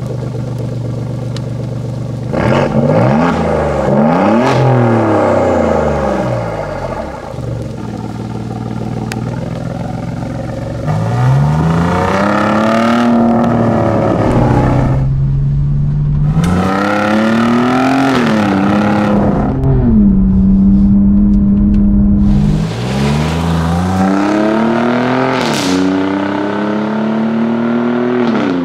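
Alfa Romeo Giulia GTA M's twin-turbo V6 through its Akrapovic titanium exhaust, revving and accelerating hard. The engine note climbs and drops back several times as it goes up through the gears, with a steadier stretch about two-thirds of the way through.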